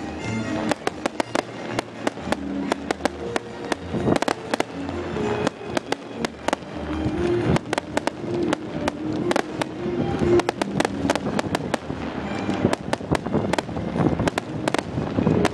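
Fireworks display: a dense run of sharp bangs and crackles, several a second throughout, with music playing underneath.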